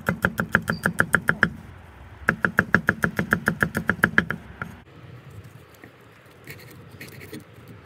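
Cleaver chopping garlic cloves on a thick wooden chopping board: rapid, even knocks about seven a second, in two runs with a short pause between. Near the end come a few faint, slower cuts as a rolled green leaf is sliced.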